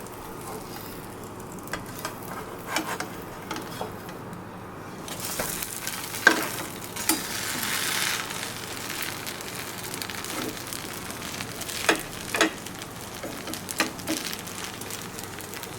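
Food sizzling in a hot pan while it is stirred, with a utensil clicking and scraping against the pan several times. The sizzle swells for a few seconds around the middle.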